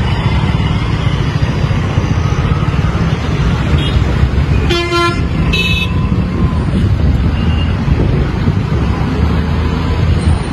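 Auto-rickshaw engine running in city traffic, a steady low rumble. A vehicle horn beeps twice about five seconds in, the second honk higher-pitched than the first.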